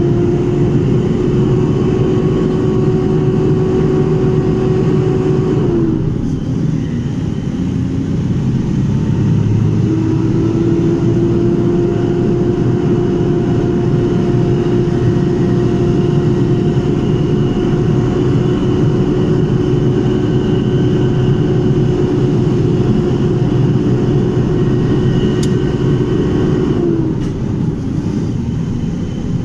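A vehicle's engine and road noise while driving, a steady low rumble with a mid-pitched whine over it. The whine dips in pitch and fades about six seconds in, returns a few seconds later, and dips again near the end.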